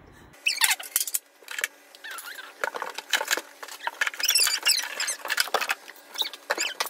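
Rapid high-pitched squeaks, clicks and rustles as cardboard and foam packing are pulled out of a charcoal grill's shipping box, with almost no low end.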